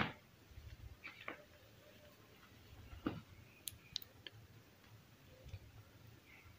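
Powder-coated gym chalk slab being lifted and handled on a tray: the end of a louder crunch at the very start, then a few faint, scattered ticks and soft scrapes of chalk crumbs and fingers on the slab and tray.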